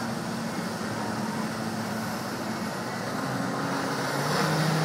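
Steady drone of the engine in the tow unit driving a water jetpack, over a hiss of the water jets. About three seconds in the engine note drops lower and it gets louder near the end as the pilot dips toward the water.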